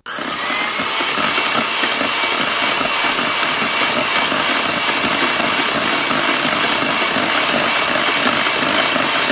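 Electric hand mixer switched on and running at a steady speed, its beaters whirring through wet banana batter in a stainless steel bowl as an egg is beaten in.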